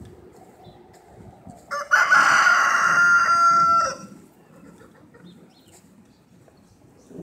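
A rooster crows once, loud, a single crow of about two seconds that starts about two seconds in.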